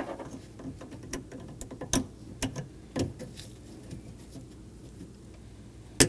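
Small plastic clicks and taps from an electrical wiring harness and its connector being handled and fed into a car door's exterior handle assembly, with one sharp click near the end.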